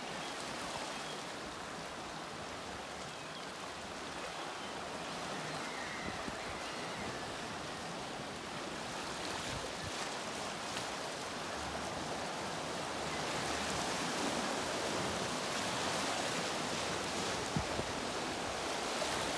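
Sea water washing and lapping against rocks: a steady rush of water that grows a little louder in the second half.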